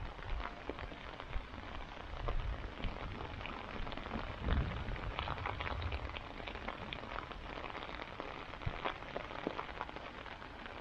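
Light rain falling, with many scattered drops ticking close by. A low rumble comes about two seconds in and again, louder, about four seconds in.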